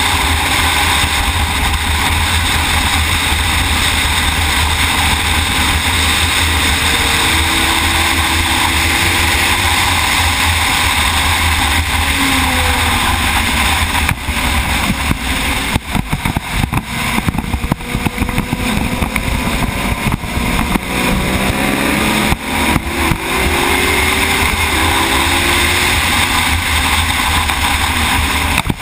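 Racing motorcycle at speed on track, heard from an onboard camera: loud, steady wind rush on the microphone over the bike's engine, whose pitch slides up and down with the throttle. About halfway through the sound turns choppy, cutting in and out for several seconds before steadying again.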